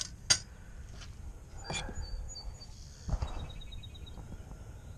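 Handling noise of a steel cleaver at a belt-grinder bench: two sharp metallic clinks in the first half-second, another just before two seconds in, and a duller knock with a rustle about three seconds in.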